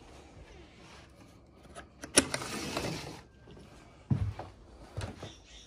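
A latch clicks and a sliding screen door rolls open with a short rattle about two seconds in, then a couple of footsteps thud on a wooden deck.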